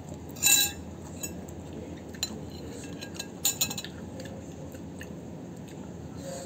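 Metal utensil clinking against a ceramic plate. There is a sharp ringing clink about half a second in, a few light taps, then a short run of clinks about three and a half seconds in.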